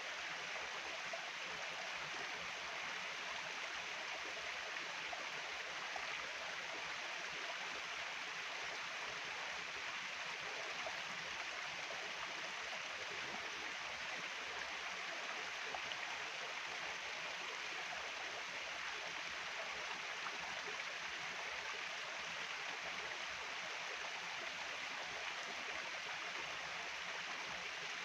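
Stream water flowing steadily, an even rushing noise with no break or change.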